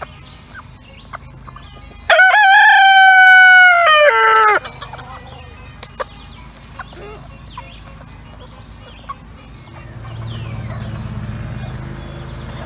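A rooster crows once, close and loud: a single crow of about two and a half seconds starting about two seconds in, its pitch wavering and then dropping at the end.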